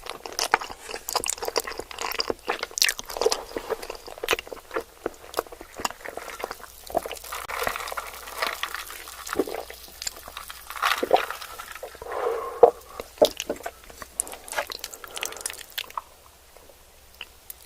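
Close-miked chewing and mouth sounds of someone eating, with many sharp clicks and wet smacks. It gets quieter over the last second or two.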